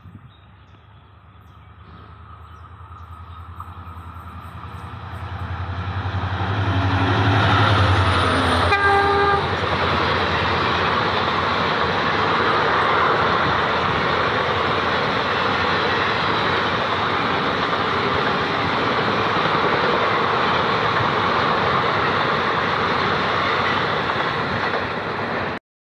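Kochuveli Superfast Express train running through the station at speed on the near track: the locomotive's hum builds as it approaches, its horn sounds once briefly about nine seconds in, then the coaches go by in a steady loud rush with wheel clatter, which cuts off suddenly near the end.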